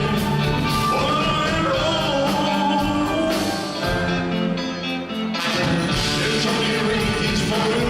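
Live band music with singing: a band with horn section and backing singers plays a rock ballad. The bass and drums thin out briefly about halfway through, then come back in.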